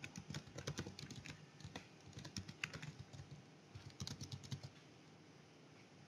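Faint computer keyboard typing: a quick run of key clicks that stops about three-quarters of the way through.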